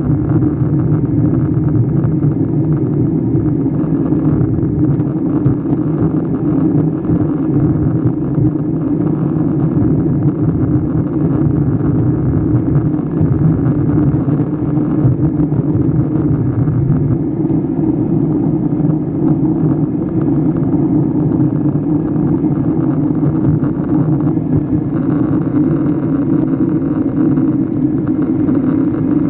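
Steady cabin drone of a jet airliner on its descent, heard inside at a window seat over the wing: engine hum with air rushing past the fuselage. The rushing grows a little brighter about 25 seconds in.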